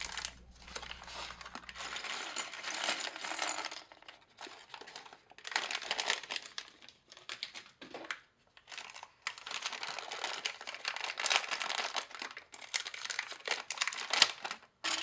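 Stiff plastic packaging crinkling and rustling as it is handled, in irregular spells with short pauses between.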